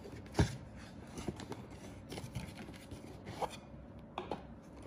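Cardboard product box handled and opened by hand: paper rubbing and scraping, with one sharp knock about half a second in and a few lighter taps and clicks after.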